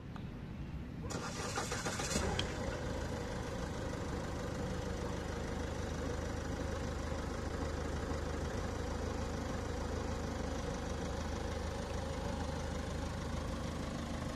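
Ford Figo Aspire's engine starting about a second in, then running steadily at idle.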